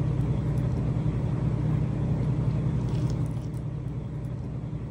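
A steady low rumble, slightly louder for the first three seconds and then easing off.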